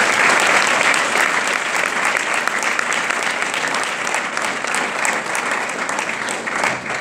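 An audience applauding, steady clapping that dies away quickly near the end.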